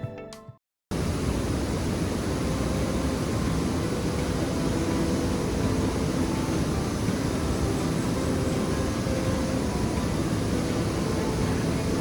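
Steady, even rushing of a waterfall, starting about a second in after a brief silence.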